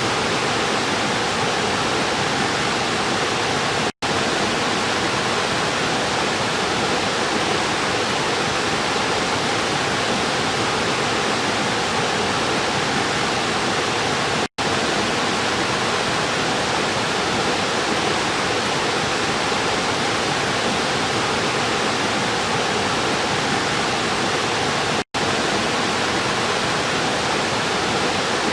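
River water rushing steadily, a dense even noise. Three times, about every ten seconds, it cuts out completely for an instant and comes straight back.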